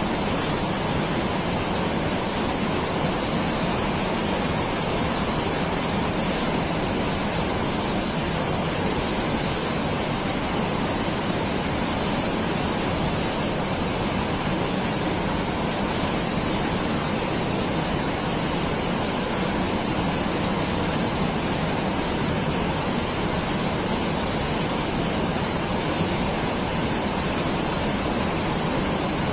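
Steady, even rushing of water, unchanging throughout, with no separate splashes or other events.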